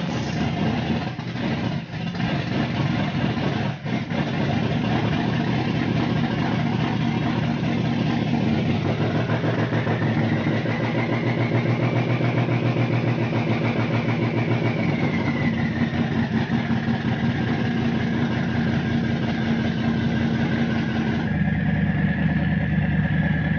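Twin-turbo Chevy small-block V8 with FiTech fuel injection idling just after being started: it runs unevenly, stumbling twice in the first few seconds, then settles into a steady idle. A high whine rises and then falls over the middle of the idle, and near the end the engine sound changes abruptly.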